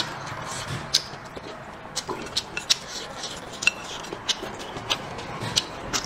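Close-up eating sounds: wet chewing and smacking clicks from the mouth, mixed with wooden chopsticks clicking against a ceramic bowl, in irregular sharp ticks a few times a second.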